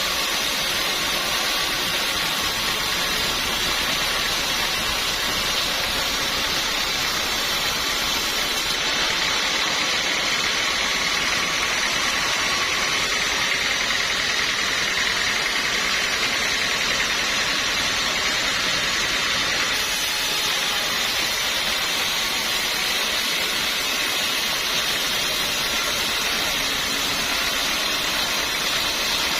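Sawmill machinery running steadily with a loud, even noise and a high whine, while teak wood is being sawn.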